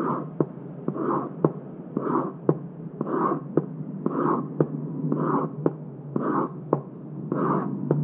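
A pen scraped and tapped on the top of a cardboard box in a steady heartbeat rhythm, about once a second: each beat is a short scratchy scrape with a sharp tap. It imitates a heart murmur, the pansystolic murmur of mitral regurgitation, which starts with S1 and runs up to S2.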